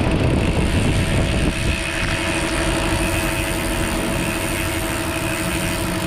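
A small motor or engine running steadily, with a constant hum and a fast pulsing throb.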